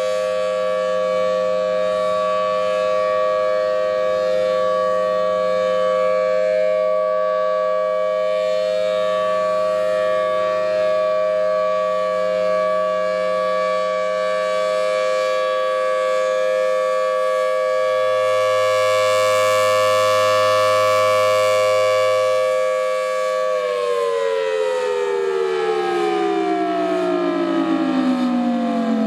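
Federal Signal Thunderbolt 1000T outdoor warning siren sounding a steady tone, then winding down, its pitch falling steadily over the last five or six seconds.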